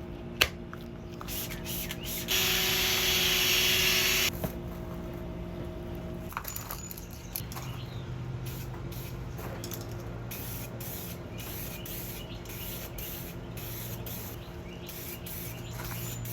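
Aerosol can of 2K clear coat spraying in one hiss lasting about two seconds, shortly after a sharp click near the start. A faint steady hum runs underneath.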